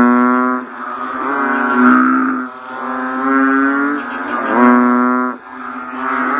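A chorus of banded bullfrogs (Kaloula pulchra) calling after rain: deep, lowing calls that rise slightly at the start and overlap one another, with a loud one every two to three seconds. A steady high-pitched hiss runs underneath.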